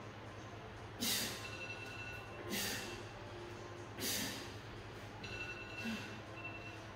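A woman breathing hard, out of breath from a set of push-up shoulder taps: three heavy breaths about a second and a half apart, over faint background music.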